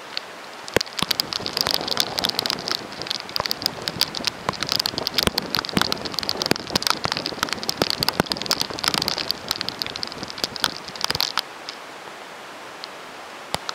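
Heavy rain hitting a car's roof and windows from inside the cabin: a dense run of sharp taps over a steady hiss. The taps start about a second in and stop near the end, leaving only the hiss and a few stray drops.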